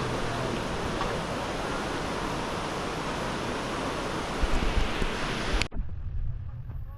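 Steady rush of falling water, with low buffets of wind on the microphone near the end. It cuts off abruptly just before the end, leaving a quieter low rumble with a few faint ticks.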